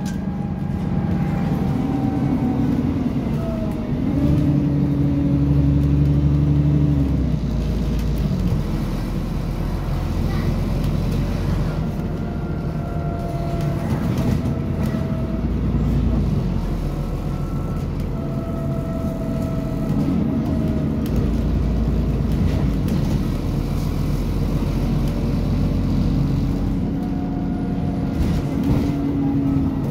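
A bus heard from inside the passenger saloon, driving along. Its engine note rises, levels off and drops again every few seconds as it accelerates, changes gear and eases off. A fainter higher whine slides down in pitch as it slows.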